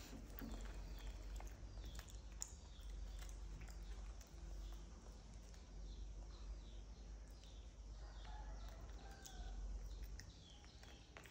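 Faint chirping of small birds, short high calls repeating several times a second, over a low steady hum.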